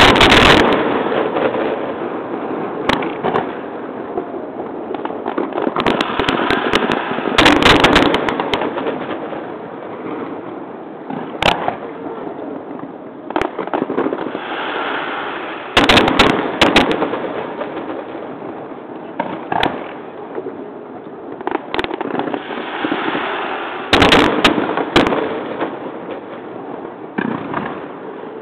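Fireworks display: aerial shells bursting in loud booms that come in clusters several seconds apart, with continuous crackling between them.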